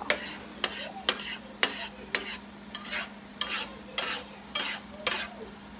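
Scrambled eggs being stirred and pushed around a hot skillet with a slotted spatula, a scraping stroke against the pan about twice a second over a faint sizzle of frying.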